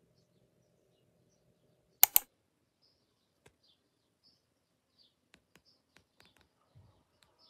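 Near silence, broken about two seconds in by two sharp clicks in quick succession. Faint scattered ticks and short, high chirps follow.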